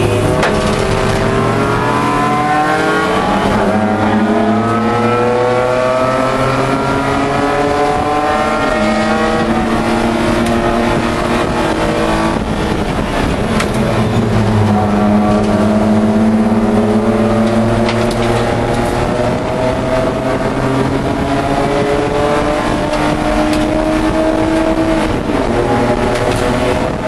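In-cabin sound of a Pro3 race car's BMW E30 2.5-litre straight-six running hard. Its pitch climbs steadily through a long pull, falls about halfway through as the driver brakes and shifts down, climbs again, and falls once more near the end.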